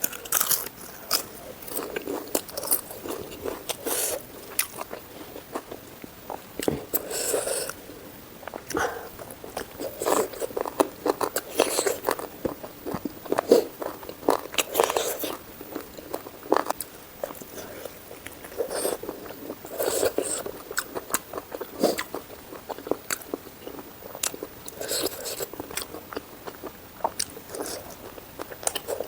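A person eating close to the microphone, chewing with many irregular, crisp crunching bites.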